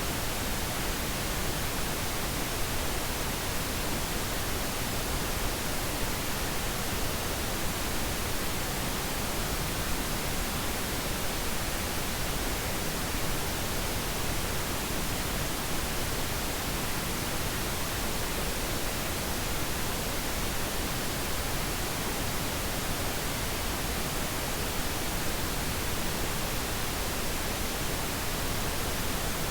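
Steady synthetic pink noise, an even hiss-like rush spread across all pitches, unchanging throughout.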